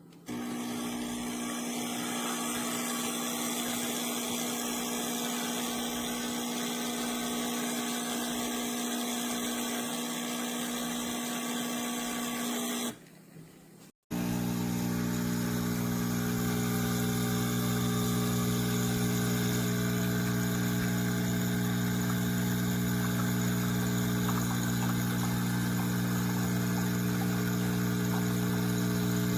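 CHULUX Slim espresso machine's 20-bar pump running with a steady mechanical hum. It stops about 13 seconds in and, after a short gap, starts again with a deeper, stronger hum.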